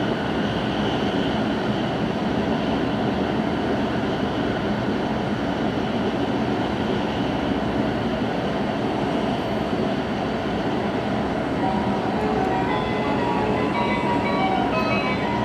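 Steady running noise of a Hokkaido Shinkansen train heard from inside the passenger car: an even rumble and hiss of wheels and air at speed. Short pitched tones join in near the end.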